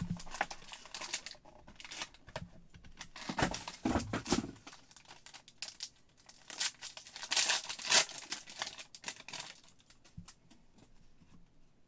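Silver foil wrapper of a football trading-card pack crinkling and being torn open by hand, in a run of short rustles with the loudest ones a little past halfway. It quietens to faint handling of the cards near the end.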